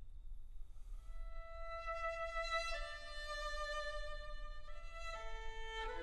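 Slow background music of long held notes, changing to a new note every second or two and growing a little louder.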